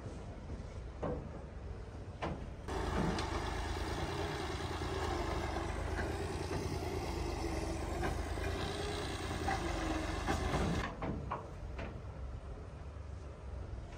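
Tractor engine running with a steady low rumble, much louder for about eight seconds from about three seconds in, starting and stopping abruptly.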